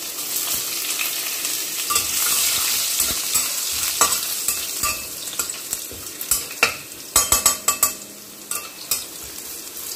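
Chopped garlic sizzling in hot oil in a stainless steel kadai, frying with cumin and a cinnamon stick. A metal spatula stirs it, scraping and clicking against the pan, most often in the second half.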